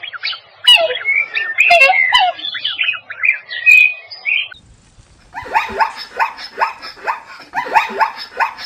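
Several birds chirping and calling in quick, varied notes for about four and a half seconds. After a brief pause, an animal call starts that is repeated rapidly and evenly, about two or three calls a second.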